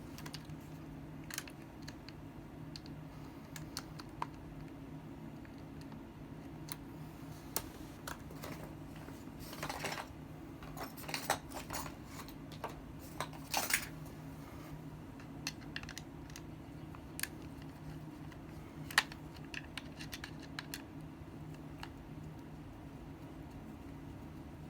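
Small clicks, taps and brief rattles of plastic and metal parts being handled while the back of a disassembled impact wrench is opened up, scattered irregularly with a busier stretch near the middle. A steady low hum runs underneath.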